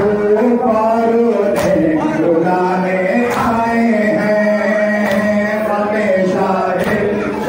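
Men chanting a nouha together, a Shia lament sung in unison, with a sharp slap of hands beating on chests (matam) every second and a half or so.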